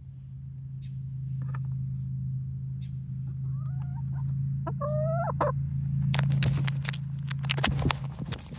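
Young hen (pullet) calling twice, short bending calls about three and a half and five seconds in, over a steady low hum. From about six seconds a run of sharp crackles and knocks takes over and is the loudest sound.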